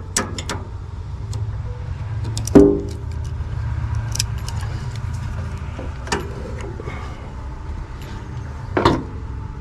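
Small metal parts and hand tools clinking and knocking during hands-on engine work, with a louder ringing metal clank about two and a half seconds in and another knock near the end, over a steady low hum.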